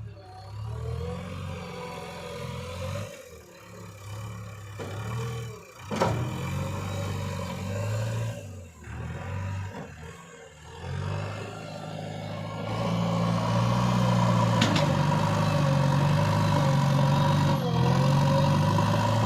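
JCB backhoe loader's diesel engine working its hydraulics, the engine note rising and falling with the load under a wavering whine. There is a sharp knock about six seconds in, and the engine runs louder and steadier through the last third.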